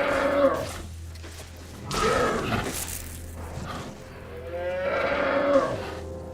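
Deep mooing bellows of a giant buffalo-like film creature: one long call at the start, a rougher blast about two seconds in, and another long call about five seconds in, over a steady low drone.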